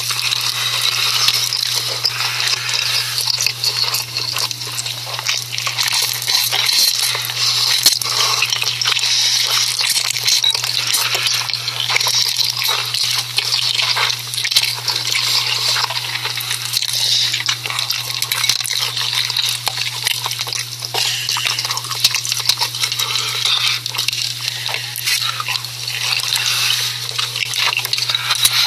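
Close-miked ASMR noodle sounds: a dense run of small wet clicks and liquid sounds, with a steady low hum underneath.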